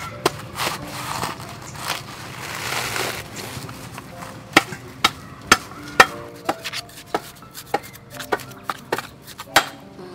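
A large knife chopping into a coconut's fibrous husk: a run of sharp strikes, about two a second over the second half.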